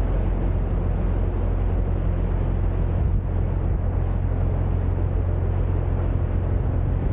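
Boat engine running with a steady low hum, under a rush of wind and water noise.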